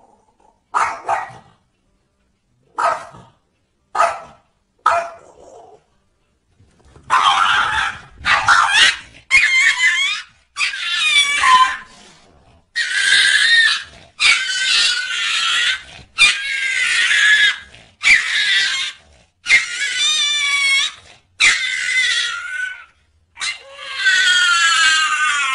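An animal crying out over and over: four short cries at first, then about a dozen longer cries of around a second each, sliding up and down in pitch.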